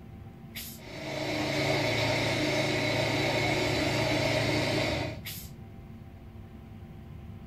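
Sound module of a Lilliput model track-tamping machine playing a tamping cycle over its idling diesel sound. About half a second in there is a short hiss, then about four seconds of loud, steady machine noise, which ends with another short hiss.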